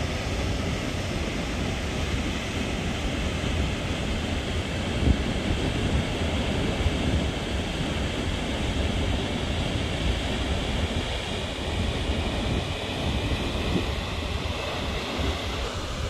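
Steady rushing of a large waterfall, with wind gusting on the microphone.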